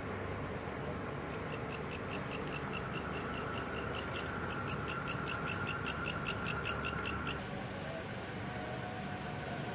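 An animal's chirping call: a series of high clicks about four a second that grows louder and stops suddenly about seven seconds in, over a faint steady high whine.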